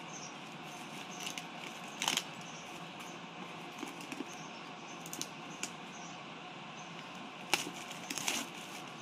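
Clear plastic shrink-wrap on a tablet box crinkling and crackling as fingers pick at it and peel it off, in a few short crackles: one about two seconds in and a cluster near the end.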